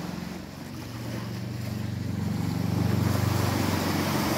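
An engine's steady low hum, growing louder from about a second in, over the wash of small waves breaking on the beach.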